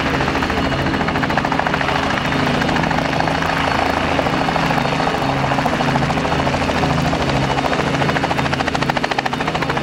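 Aérospatiale Gazelle helicopter hovering low, its rotor chopping steadily over a constant turbine tone.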